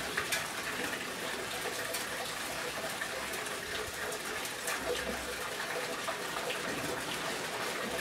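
Running water trickling steadily, with a few faint ticks.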